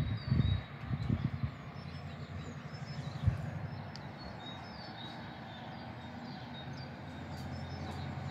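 Small birds chirping in short high notes over a steady low rumble of distant traffic. Low thumps on the microphone in the first second or so, and a single knock a little after three seconds.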